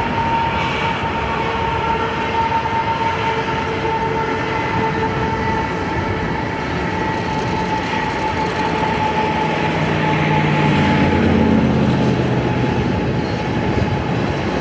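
Freight train rolling past: a steady rumble and rattle of wheels on rails, with a held high squeal of steel wheels. It grows a little louder about two-thirds of the way through.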